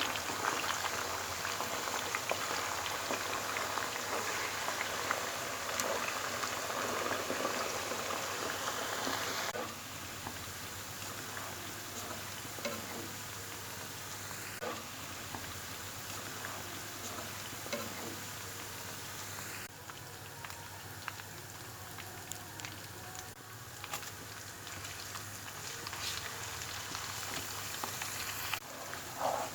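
Galangal-spiced chicken cooking in a pan, a dense bubbling crackle with many small pops. It drops in level twice, about ten seconds in and again near twenty seconds.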